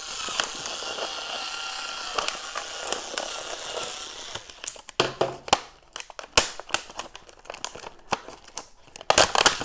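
SKIL Auto Sharp cordless cutter's spinning blade cutting through a stiff plastic blister package, steady for about four and a half seconds. It is followed by irregular crinkling and crackling of the plastic as it is handled and pulled apart.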